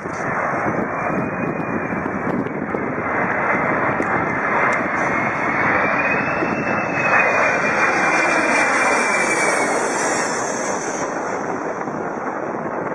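Airplane engines running loudly, with a steady rush and a thin high whine that rises around the middle of the stretch and then falls back.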